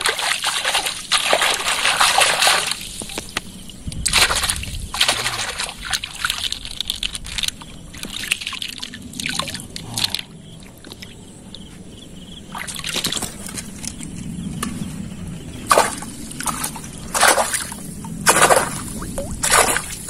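A hand splashing and sloshing shallow river water: a dense run of splashes at the start, then single splashes every second or two.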